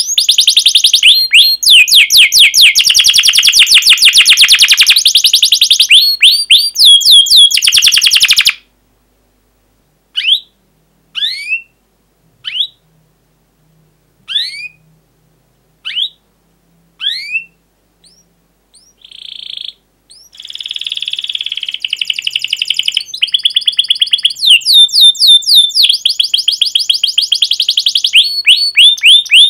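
Domestic canary singing: long runs of fast, repeated sweeping notes (a rolling trill), which stop abruptly about eight seconds in. Single sharp 'cuit' chirps follow at about one a second, then the fast trilling starts up again about twenty seconds in.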